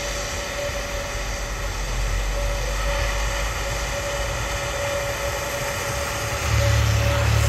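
Airbus A320neo airliner's jet engines running at low power as it taxis on the runway: a steady jet hum with one held tone. A deeper low rumble grows louder about six and a half seconds in.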